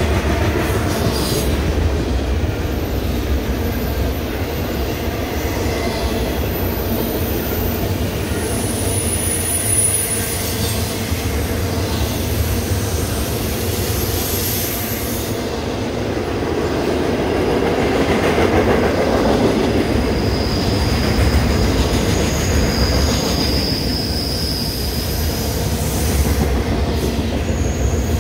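Intermodal freight train's cars rolling past with a steady, loud rolling noise. Brief high-pitched wheel squeals come through about a third of the way in and again later on.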